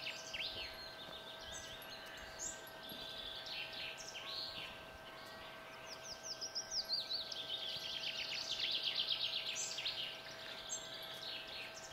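Several wild birds singing and calling in woodland, with quick chirps and rapid trills, busiest in the second half, over a faint steady hum.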